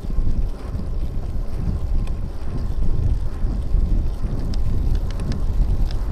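Wind buffeting the microphone of a bicycle-mounted camera while riding, with a steady low rumble from the road and a few faint ticks, likely rattles from the bike, in the second half.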